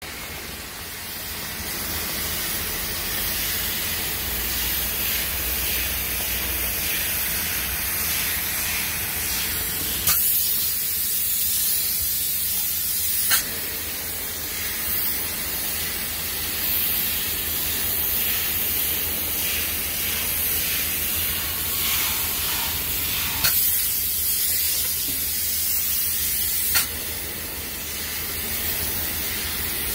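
Spray foam insulation gun hissing steadily as it sprays two-component foam, over a low hum. The hiss changes sharply, turning brighter, about ten seconds in and switches back with a click about three seconds later. The same happens again at around twenty-three and twenty-seven seconds.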